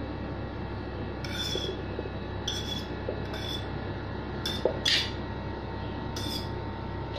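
A metal fork scraping diced cucumber off a plate, with about six short rasping scrapes spaced irregularly.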